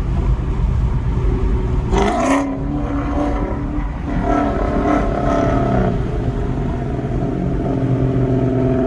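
Car engine and road noise during highway driving. About two seconds in there is a sharp loud burst, and an engine revs up, holds its note, and eases off about six seconds in.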